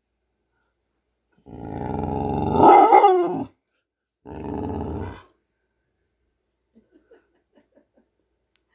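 Dog vocalizing in play: a long drawn-out call that swells to its loudest about three seconds in, then a shorter one a second later, followed by a few faint ticks.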